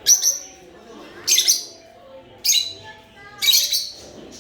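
Lovebirds calling: four loud, shrill, high-pitched chirps about a second apart, with softer chatter from other birds underneath.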